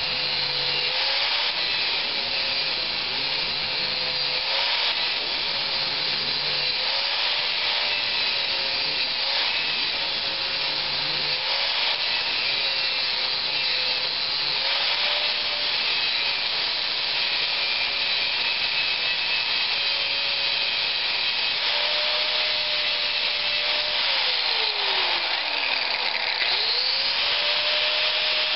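A 4.5-inch angle grinder running, its disc grinding the swaged rivet heads off a lawnmower flywheel: a steady whine over a grinding hiss, the pitch dipping and recovering as the disc bites. Near the end the grinder winds down, spins up again and begins winding down once more.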